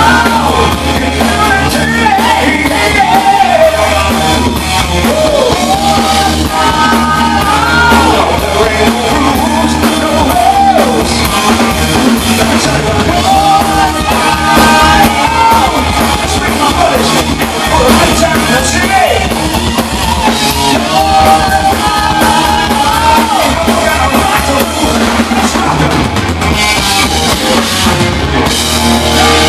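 Hard rock band playing loud live: electric guitars, bass guitar and drum kit.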